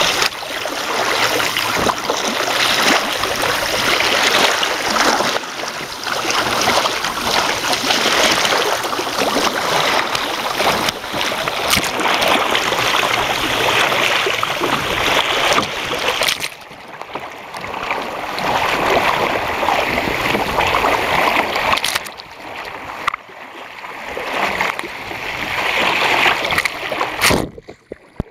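Water rushing and splashing against a kayak's hull as it runs downwind through wind-driven chop at about 7 km/h, heard from right at the waterline. The rush swells and eases with the waves and drops away briefly near the end.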